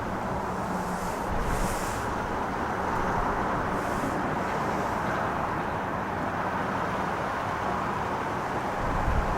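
Steady rushing noise of airliner jet engines running.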